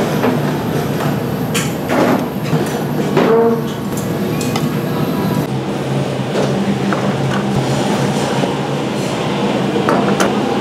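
Busy commercial kitchen: a steady low rumble and hum with scattered clatter and knocks of utensils and dishes.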